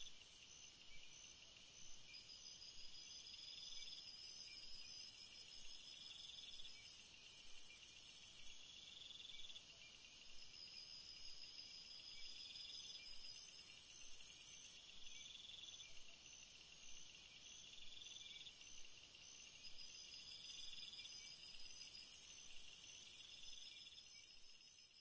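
Faint chorus of forest insects, crickets among them: several high, overlapping pulsed trills and evenly repeating chirps, over a very high hiss that swells and fades several times.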